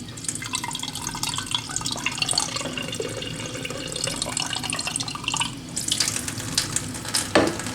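Tap water running into a container. A short sharp knock near the end.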